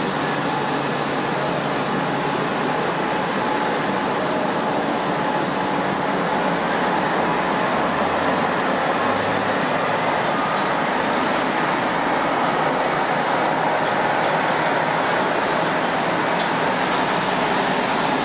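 Airliner jet engines running: a steady rushing roar with a faint whine, swelling slightly in the middle.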